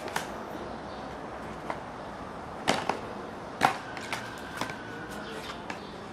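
Several sharp taps and clicks of cardboard animal cards and their box being handled, the loudest a little under three seconds in and again about a second later.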